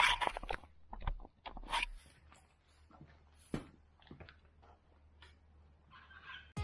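Scattered light handling noises: a knock, then short clicks and scratchy rustles, with a faint low hum that stops about two seconds in.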